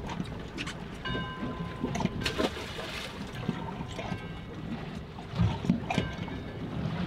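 Water lapping against the side of a small fishing boat, with scattered clicks and knocks from handling gear on deck. A brief high steady tone sounds about a second in.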